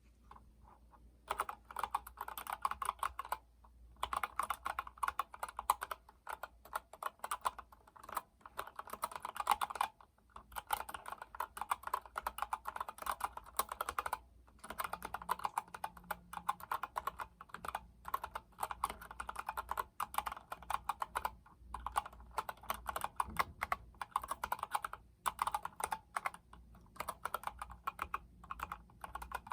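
Typing on an Epomaker GK73X mechanical keyboard with Gateron Yellow linear switches: a rapid, continuous run of keystrokes that starts about a second in and breaks off briefly a few times.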